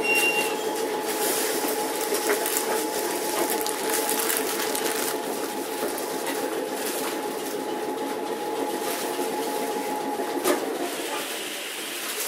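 Randen Mobo 21 tram heard from inside the car as it runs and slows: a steady humming drone with rattles and clicks from the car body and rails, and one sharp knock about ten seconds in. The hum dies away near the end as the tram comes to a stop.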